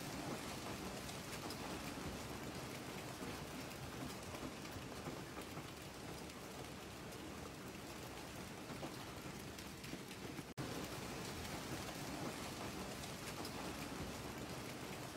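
Hail and heavy rain pelting the ground in a dense, steady downpour, breaking off for an instant about ten seconds in.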